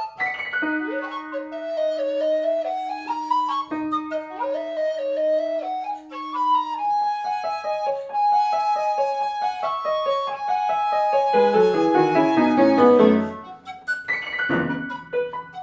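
Flute and piano playing a contemporary chamber piece. A low note is held for about six seconds under quick, skipping figures. Then come fast repeated notes and a rapid run falling to the bass, which breaks off about thirteen seconds in before new notes start near the end.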